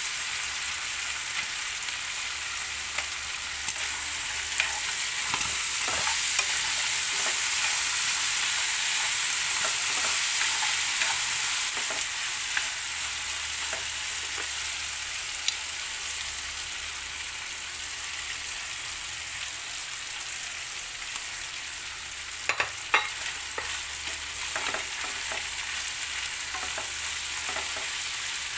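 Ground pork and diced potatoes sizzling in a frying pan, with a metal spatula scraping and clicking against the pan as the mixture is stirred. A few sharper knocks of the spatula on the pan come about three-quarters of the way through.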